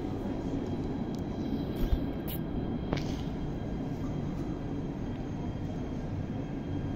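Electric street tram approaching slowly along its rails: a low, steady rumble, with a few faint clicks in the first three seconds.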